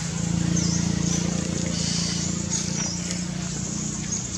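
Outdoor background sound: a steady low hum, with short high chirps now and then.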